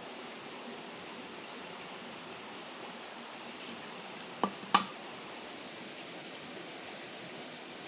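Steady rush of a shallow, rocky stream. About four and a half seconds in come three quick sharp knocks, the last the loudest.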